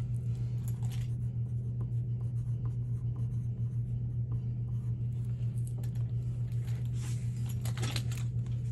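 Wooden pencil writing on a sheet of paper on a tabletop: short scratchy strokes, heaviest about a second in and again near the end. A steady low hum runs underneath and is the loudest sound.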